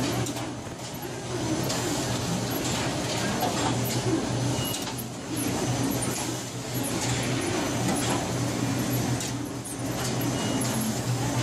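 Latex glove coating machine running, its conveyor carrying hand-shaped formers: a steady low motor hum under constant mechanical noise, with scattered clicks.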